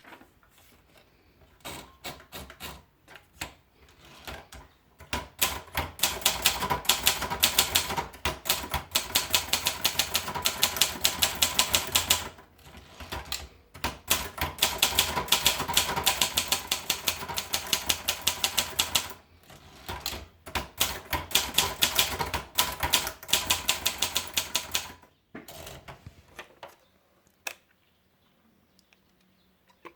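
President typewriter being typed on: runs of rapid key strikes lasting several seconds each, broken by short pauses, with a few scattered single strikes at the start and near the end.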